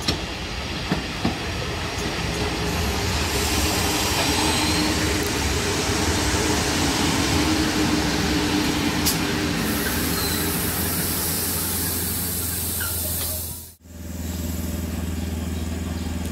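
EAV ET.409 electric multiple unit pulling into the station and rolling slowly past, a steady rumble of wheels and running gear with a steady low hum under it. The sound drops out briefly about 14 seconds in, then the steady hum carries on.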